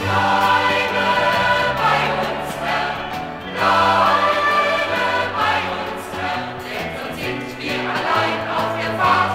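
A choir singing a German church song with a band playing along.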